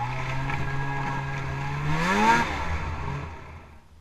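Snowmobile engine running at a steady speed, then revving up sharply about two seconds in before falling away to quiet near the end.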